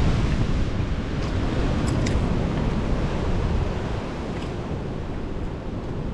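Steady rushing noise of sea surf mixed with wind buffeting the microphone, heaviest in the low end, with a couple of faint small clicks about two seconds in.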